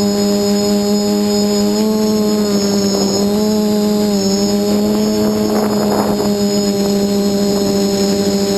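Quadcopter's SunnySky 2216 brushless motors spinning 8x4.5 carbon props in flight: a steady buzzing hum with overtones that rises and dips a little in pitch as the throttle changes, with a thin high whine above it. Brief rushes of noise come about three and six seconds in.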